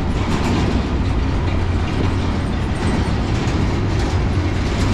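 Double-stack intermodal well cars of a long freight train rolling slowly past, a steady rumble of steel wheels on rail.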